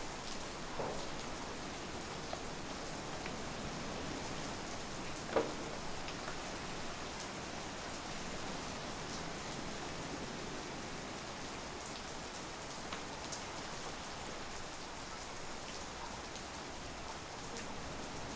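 Steady rain falling, an even hiss with scattered drip ticks, and one sharper tick about five seconds in.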